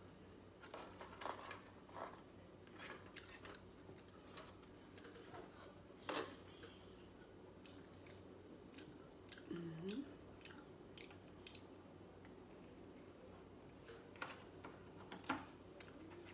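Faint, scattered crunches and clicks of crisp hard taco shells and a metal spoon being handled over foil pans as tacos are filled, with a brief squeak about ten seconds in.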